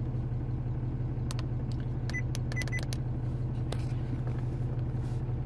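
Cummins straight-six turbodiesel idling, a steady low rumble heard from inside the cab. A few faint clicks and short high beeps come between about one and four seconds in.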